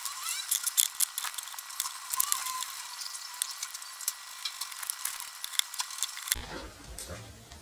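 Rapid crackling and clicking of a cardboard earphone box's packaging being handled and turned over in the hands. A little after six seconds in, it gives way to a duller, lower scraping as a knife cuts into the box.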